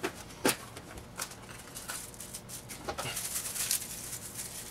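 A few sharp clicks as small parts are handled at an open distributor, the loudest about half a second in, then from about three seconds in the crinkling of a thin plastic bag being handled.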